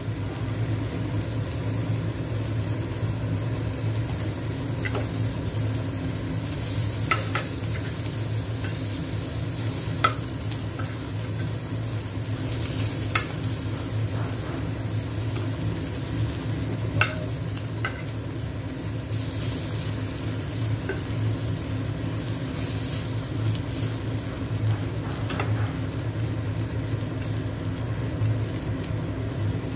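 Dried sapsap fish frying in a little oil in a nonstick pan, sizzling steadily. A metal spatula clicks and scrapes against the pan now and then as the fish are turned and pressed. A steady low hum runs underneath.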